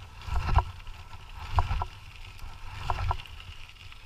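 Dog scooter rolling along a trail behind a pair of running dogs: a steady low rumble from the wheels, with short knocks and rattles in pairs a little more than once a second.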